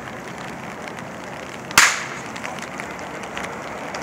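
A training whip cracking once, sharply, a little under two seconds in, as used by a protection-dog decoy to agitate the dog.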